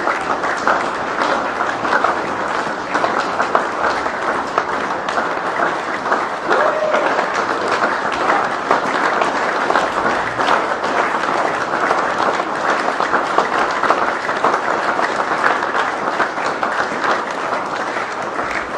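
Audience applauding: many hands clapping in a dense, steady stream that does not build or fade.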